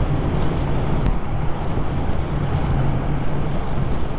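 Motorcycle cruising at a steady speed, its engine a constant low drone under heavy wind rush on the microphone.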